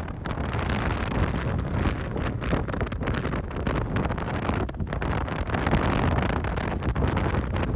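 Strong blizzard wind buffeting the microphone in gusts, with crackling hits and a low steady rumble underneath.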